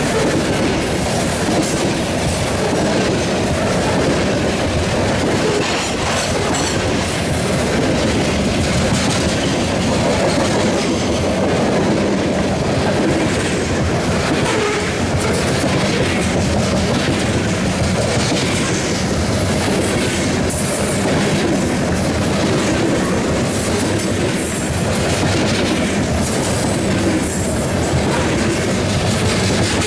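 Freight cars of a passing train rolling by at a steady speed, steel wheels clacking over the rail joints.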